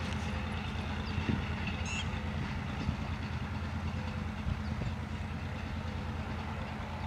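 Hitachi-built GMCU diesel-electric locomotive's engine running steadily at a distance, a low even rumble, with a few faint bird chirps about two seconds in.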